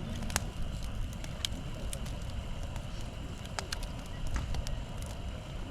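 Wood campfire crackling, with irregular sharp pops scattered through, over a low steady rumble.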